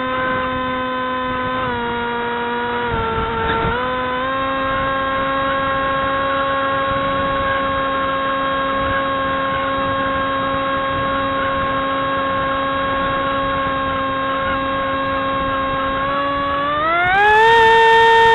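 Model aircraft's motor and propeller, heard from the onboard camera: a steady whine that dips slightly in pitch in the first few seconds, then holds and rises sharply near the end as the throttle is opened and the plane climbs.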